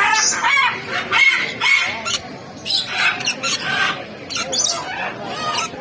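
Birds calling: a run of many short, repeated calls that overlap one another.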